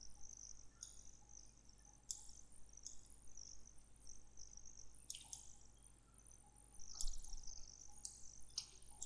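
Faint background of high-pitched insect chirping in short repeated bursts, over a low steady hum, with a few soft sharp clicks, about four in all, from a computer mouse.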